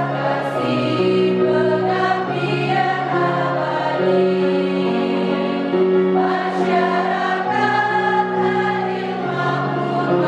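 Women's choir singing a slow song in harmony, holding long notes, the chords changing every second or two.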